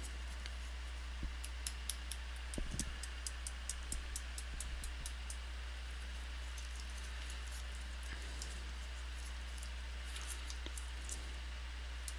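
A quick run of light, sharp clicks, about six a second, for a few seconds, then a few scattered clicks near the end, over a steady low hum.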